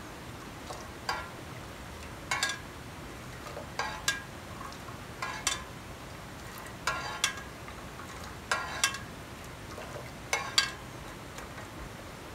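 Metal spoon stirring hot caramelized sugar syrup in a pot, clinking against the pot's side about every one and a half seconds.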